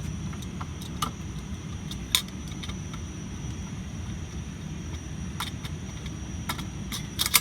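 A few sharp, scattered clicks and taps of a Thorn B5 fire alarm pull station being handled during its reset, over a steady low hum.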